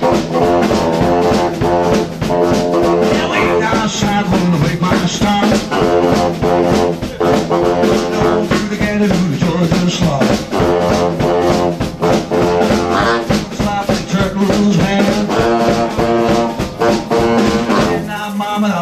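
Live garage-swing band playing an instrumental passage: a baritone saxophone carries the melody over an archtop electric guitar, upright bass and drum kit.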